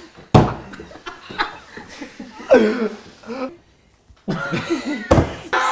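People laughing and wheezing, with two loud thumps of a hand hitting the table: one about a third of a second in and one near the end.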